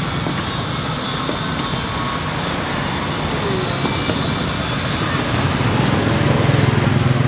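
Street traffic: a steady low engine rumble with road noise, growing louder about five seconds in as a vehicle comes close.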